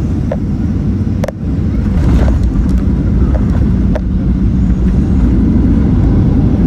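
Boeing 737 cabin noise on landing: a loud, steady low rumble of the jet and the wheels on the runway, with a few sharp clicks and rattles, getting a little louder about two seconds in.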